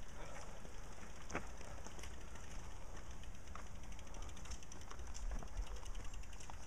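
Mountain bikes being pushed uphill on a dirt forest path: rear-hub freewheels ticking quickly as the wheels roll with the pedals still, mixed with footsteps and tyres on leaf litter and a few sharper clicks.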